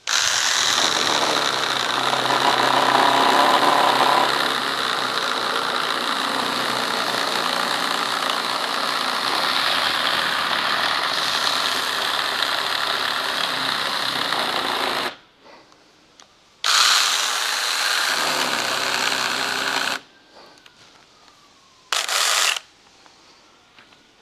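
24-volt battery-powered 6-inch mini chainsaw cutting through a wooden branch, its motor and chain running steadily for about fifteen seconds. It stops, runs again for about three seconds, then gives one short burst near the end.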